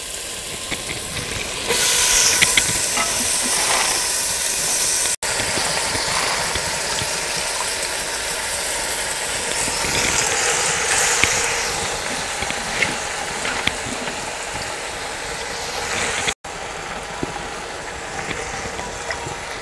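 Hot spice paste in a clay pot sizzling and hissing with steam as handfuls of fresh spinach leaves are dropped in. The sizzle grows louder about two seconds in and stays steady, with two brief breaks.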